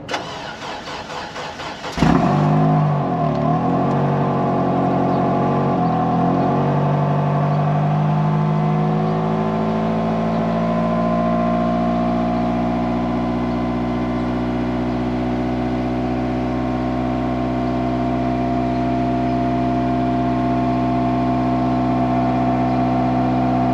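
Honda Civic Type R FN2's 2.0-litre four-cylinder engine on a cold start at about −16 °C: about two seconds of pulsing starter cranking, then it catches with a rev flare, dips twice and settles into a steady high cold idle.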